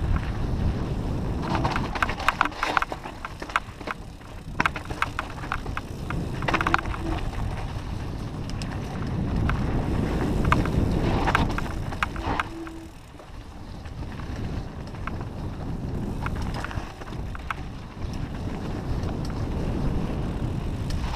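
Mountain bike ridden over rocky dirt singletrack: tyres crunching over gravel and stones, with the bike rattling and knocking sharply over rocks, under a steady rumble of wind buffeting the microphone.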